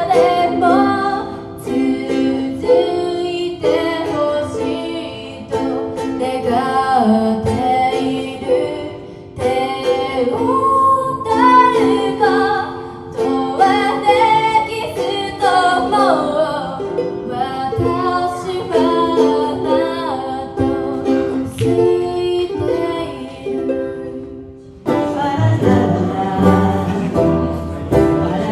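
Music led by a plucked string instrument like a ukulele, with a gliding melody line over it. About 25 seconds in, a fuller accompaniment with bass comes in suddenly.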